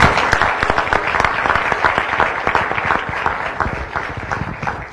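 Audience applauding with many hands clapping. The clapping is loud at first and thins out and fades near the end.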